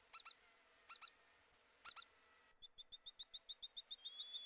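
Faint, high animal calls. Short falling chirps come in pairs about once a second; then, from around two and a half seconds in, a rapid run of short high notes quickens into an unbroken high trill.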